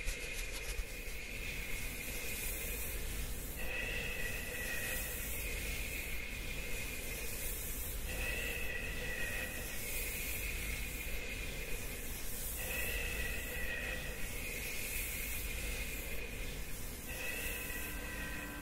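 Ambient soundtrack of steady hiss under a pair of high held tones, with a fainter lower tone, that fade and restart about every four and a half seconds.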